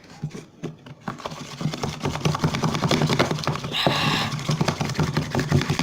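Slime mixture of glue and boric acid solution being stirred fast and hard in a bowl: a quick run of clicks, scrapes and squelches that starts about a second in. This is the activating stage, mixing until the slime sets.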